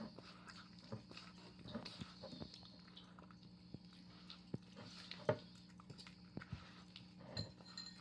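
Two cats eating, with irregular clicks and crunches of chewing and biting, over a steady low hum.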